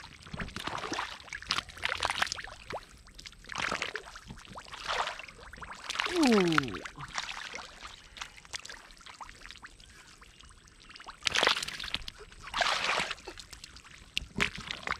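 Irregular sloshing and splashing of feet and hands working through shallow muddy water and soft mud, in uneven bursts, the loudest about six seconds in and again around eleven to thirteen seconds.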